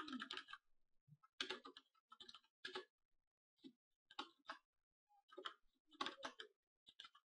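Faint computer keyboard typing: irregular runs of quick keystrokes with short pauses between them.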